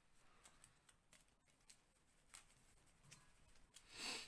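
Quiet tabletop handling of game cards and pieces: scattered faint clicks and soft rustles, with one brief louder rustle about four seconds in.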